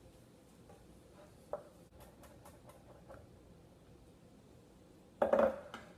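Chef's knife mincing garlic on a wooden cutting board: light, scattered taps of the blade against the board, with a short, louder burst of chopping about five seconds in.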